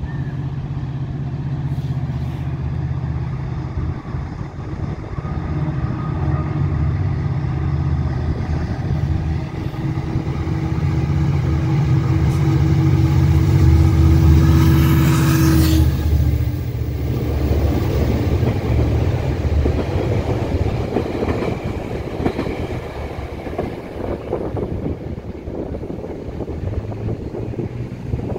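An EXO commuter train passes: the locomotive's engine drone grows louder as it approaches and peaks as it goes by about halfway through. Then the passenger coaches roll past with steady wheel-on-rail noise that slowly fades.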